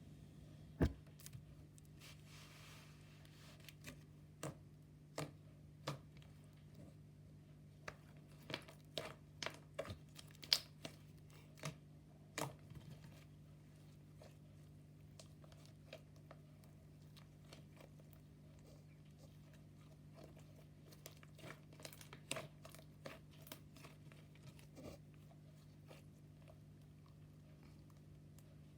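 Slime being pressed and worked by hand, giving off irregular sharp clicks and pops, thickest in the first half and again in a cluster later on, over a faint steady low hum.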